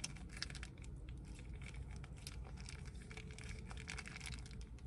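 Plastic packaging crinkling and rustling as it is handled, in many small irregular crackles, over a steady low rumble.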